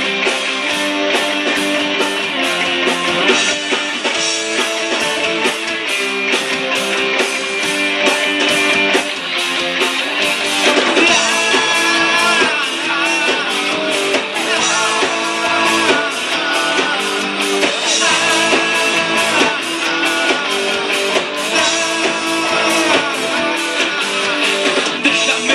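Live rock band playing: electric guitars, bass guitar and drum kit over a steady beat. A higher melody line with bending pitch comes in about eleven seconds in.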